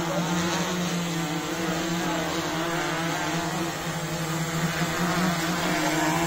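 Large multirotor drone's propellers spinning with a steady, even hum.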